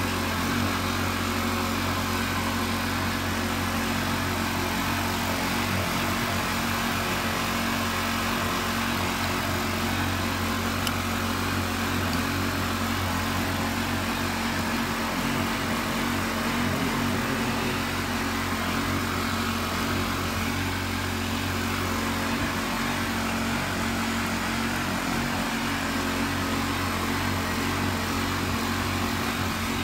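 A small engine running steadily, a constant hum that never changes pitch or level.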